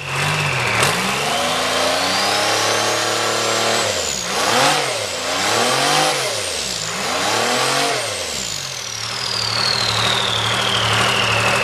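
Turbocharged Detroit Diesel two-stroke engine revved up from idle, the turbo whine climbing over about four seconds. The engine is then blipped up and down a few times before it drops back to idle, with the turbo whistle winding down slowly.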